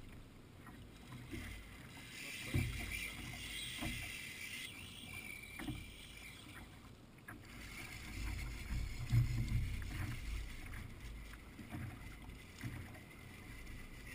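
Water sloshing and slapping against a sit-on-top kayak's hull, with uneven low wind buffeting on the mounted microphone and scattered small knocks.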